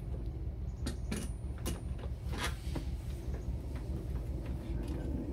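Plastic tail light housing knocking and scraping against the car's body as it is pushed into its opening: a few short clicks and knocks in the first half, then a longer scrape, over a steady low hum.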